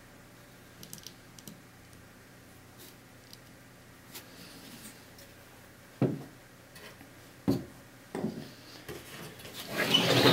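Handling of a hard drive and DVR case: faint small clicks, then two sharp knocks about six and seven and a half seconds in, then rubbing and scraping that grows louder near the end.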